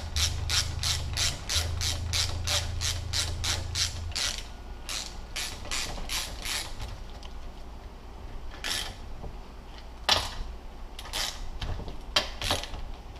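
Hand ratchet wrench clicking as the bolts of a MazdaSpeed 6 transfer case cap are run down and snugged: a quick even run of clicks, about four a second, for the first four seconds, then slower clicks, then a few single clicks near the end.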